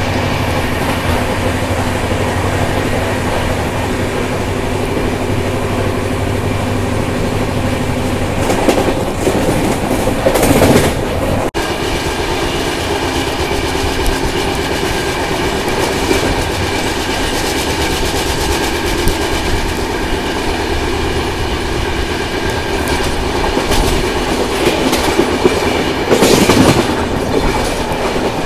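Train running along the track: a steady loud rumble with the clickety-clack of wheels over rail joints, swelling louder twice.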